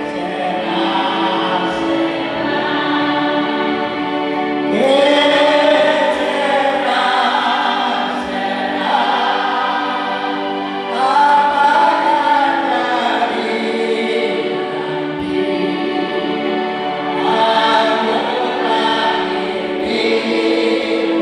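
A choir singing a slow song in long held notes, swelling louder about five and eleven seconds in.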